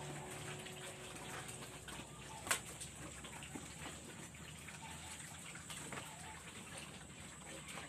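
Pigs eating at a wet trough: faint, irregular wet slurping and splashing clicks, with one sharper click about two and a half seconds in.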